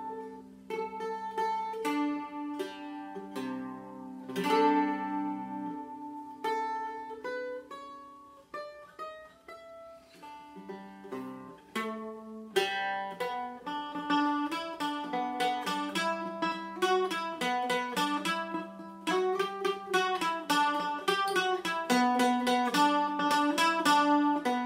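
Handmade carved-top mandola with a spruce top and mahogany body, strummed in ringing chords for the first few seconds, then picked in single notes, quiet and sparse at first, then in a quicker, louder run of notes from about halfway through.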